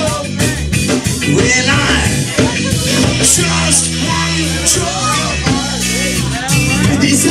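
Live punk-reggae band playing with electric guitar, drums and a singer, heard loud in a small bar.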